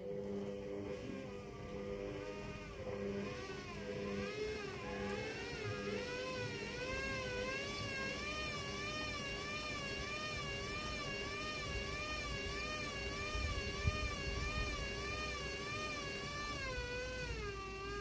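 Hoover front-loading washing machine's drum motor turning the drum with a heavy wet rug inside: a whine that rises in pitch over the first few seconds, wavers up and down in a steady rhythm, and falls away near the end as the drum stops. A couple of dull thuds about three-quarters of the way through.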